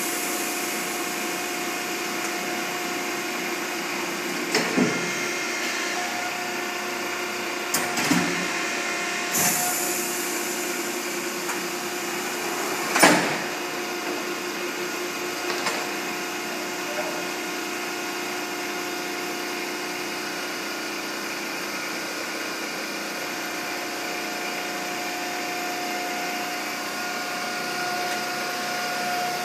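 Hydraulic die-cutting press running, its pump motor giving a steady hum with a fixed tone. Several sharp knocks and clunks come between about five and sixteen seconds in as the cutting die and sheet are worked on the press bed, the loudest about thirteen seconds in.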